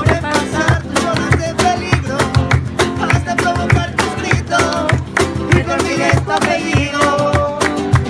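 Music: fast, rhythmic strummed Spanish guitar in a flamenco-rumba style, with a steady beat.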